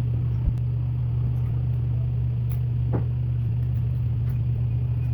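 Steady low hum with a few faint, light clicks scattered through it.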